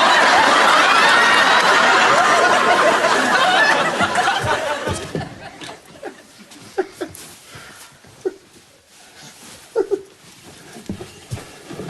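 Sitcom studio audience laughing, loud for about four seconds, then dying away, with a few scattered faint sounds after.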